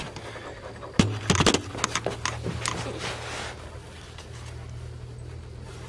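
Footsteps and camera handling: a cluster of sharp knocks and clicks starting about a second in, the first the loudest, then fading, over a steady low hum.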